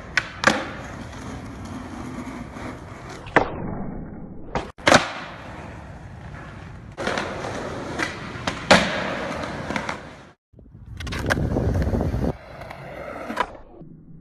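Skateboard wheels rolling over concrete, broken by several sharp clacks of the board popping and landing, in short clips that cut off abruptly twice.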